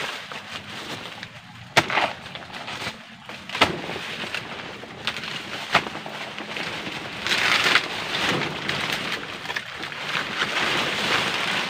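Golok machete chopping into a banana plant's trunk: three sharp strikes about two seconds apart, then longer stretches of rustling from the stem and its dry leaves.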